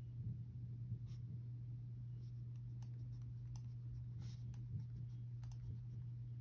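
Faint, irregular scratches and light clicks of a pen writing on paper, over a steady low electrical hum.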